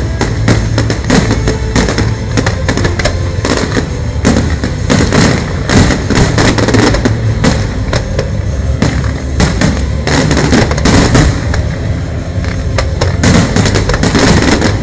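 Fireworks display: a dense barrage of aerial shells bursting, with many bangs and crackles close together throughout, over music.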